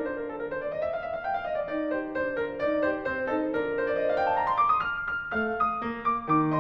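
Background piano music with a bright melody; about four seconds in, a quick rising run of notes climbs to a held high note.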